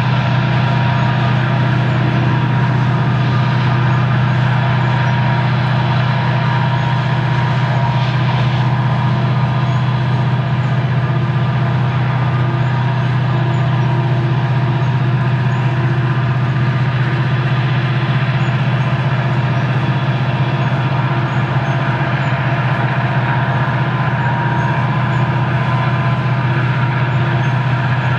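Diesel-electric helper locomotives in the middle of a loaded coal train working hard upgrade: a steady, loud, low engine drone with several steady higher tones over it.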